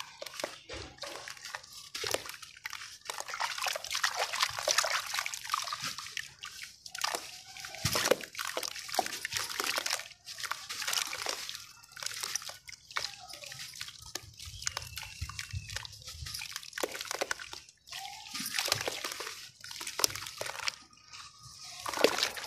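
Hands crumbling and squeezing a soaked block of sand and cement under water in a plastic tub: gritty crunching and crackling mixed with sloshing and dripping. It comes in irregular spurts with brief pauses.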